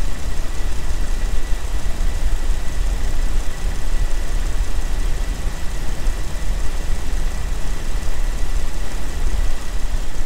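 2001 Jeep TJ engine idling, its belt-driven cooling fan spinning inside the newly lowered fan shroud with no knocking or scraping. A thin steady high whine sits over the deep, even engine noise.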